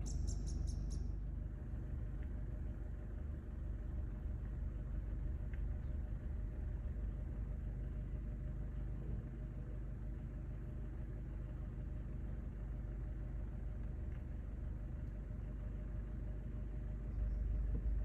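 Steady low rumble, growing slightly louder near the end.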